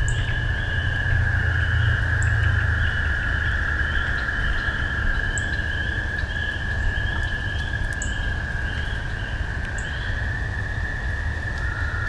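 Pond frog chorus: a steady, unbroken high trill, with a second trill at a slightly lower pitch joining near the end, and a run of short repeated chirps above it. A low rumble runs underneath.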